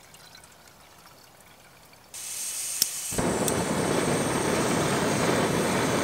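Water trickling faintly into a metal pot, then a backpacking gas canister stove being lit: a hiss of gas about two seconds in, a click, and the burner catching about three seconds in and running with a steady roar.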